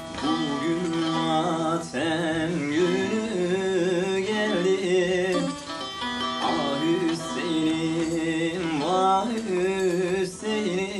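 Bağlama (saz) playing, with a voice singing an ornamented, wavering melody over it: Alevi cem music.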